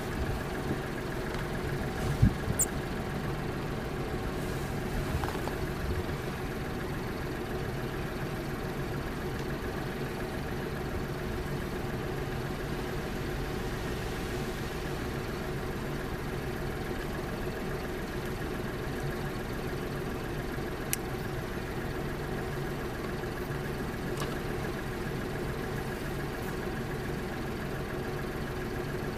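Kei car engine idling steadily, with a couple of light knocks about two seconds in.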